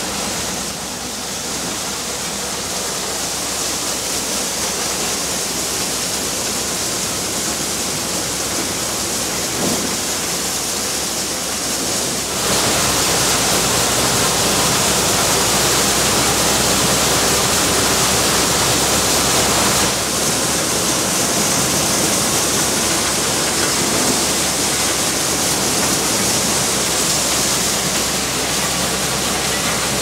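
Corn thresher running under load as ears of corn are fed in, a steady, even noise of the threshing drum with kernels pouring out and cobs and husk being thrown clear. It gets louder about twelve seconds in.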